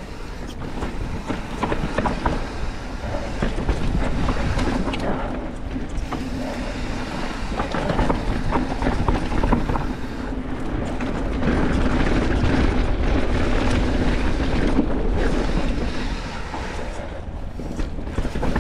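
Specialized Kenevo SL electric mountain bike ridden down a dirt singletrack: tyres rolling over the dirt, with the bike rattling and clicking continuously over the bumps, swelling louder for a few seconds after the middle.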